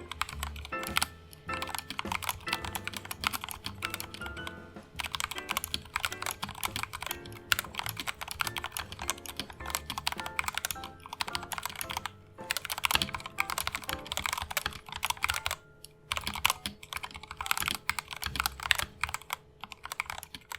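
Typing in bursts on a Royal Kludge RK68 mechanical keyboard fitted with stock, unlubed Gateron Yellow linear switches: rapid runs of keystrokes with short pauses between them. Background music plays underneath.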